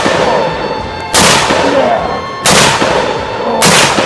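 Three shots from a SIG Sauer P716 AR-10 pistol in .308 (7.62x51), about a second and a quarter apart, each followed by a long echo. The tail of an earlier shot is heard at the start.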